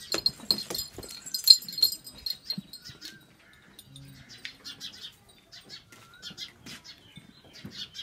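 Goats moving about a pen: a run of sharp clicks and light metallic jingling for the first two seconds, the loudest click about a second and a half in, then faint short high chirps.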